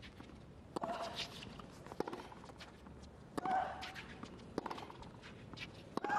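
Tennis ball bounced a few times on a hard court by the server before her serve, each bounce a sharp knock, with brief voices from the crowd; a short, louder cry comes right at the end as the serve begins.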